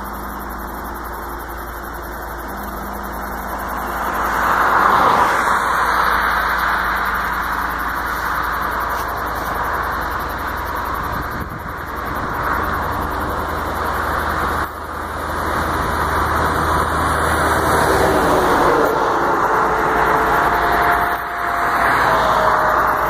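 Steady rush of road vehicle noise, a car or passing traffic, growing louder about four seconds in and staying up.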